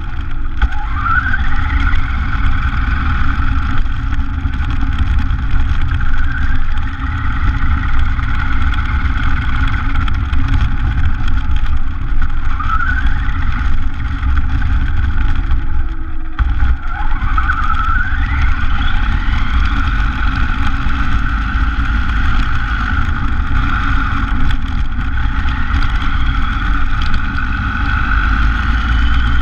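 Onboard sound of a radio-controlled buggy driving on asphalt. A steady motor whine climbs in pitch several times as the car speeds up, over a heavy rumble of tyres and road vibration.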